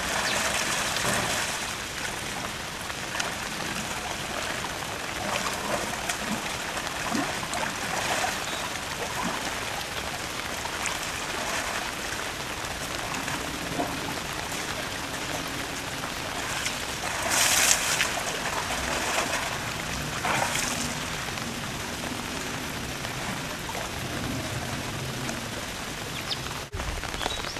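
Asian elephant splashing in a shallow concrete pool, over a steady rush of running water. There are louder splashes at the start and again about two-thirds of the way through.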